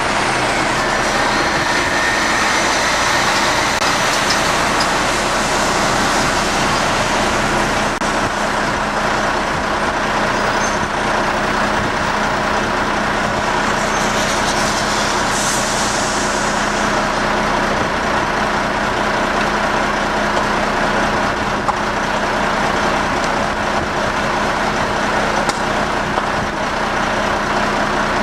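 A burning truck: a steady, loud rush of flame with a low steady hum underneath, and a brief high hiss about halfway through.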